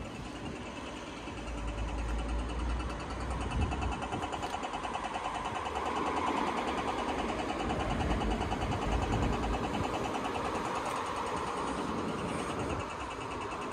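Swedish level crossing warning bell ringing rapidly and continuously with the barriers down, over the low rumble of road traffic.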